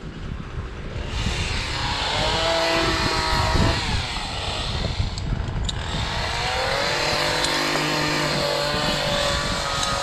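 An engine running, its pitch slowly rising and falling, over a steady rushing noise that starts about a second in.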